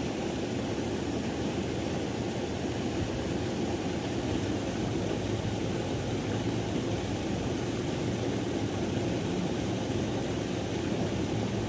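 Steady rushing of river water, an even noise with most of its weight low down and no breaks or strikes.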